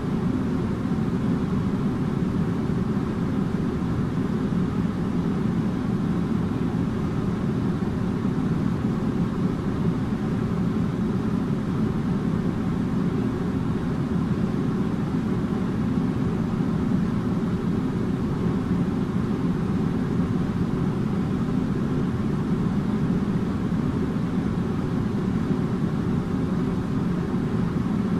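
Air conditioner running steadily: an even, low rushing hum that does not change, with faint steady tones above it.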